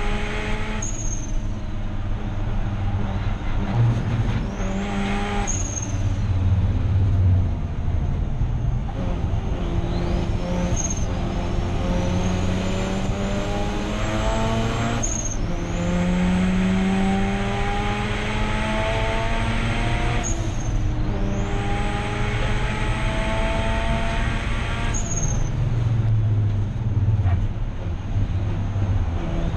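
Turbocharged 13B rotary engine of a Mazda RX8 race car pulling hard, its revs climbing in long sweeps that are cut off suddenly by upshifts several times. A high whine rises with each pull.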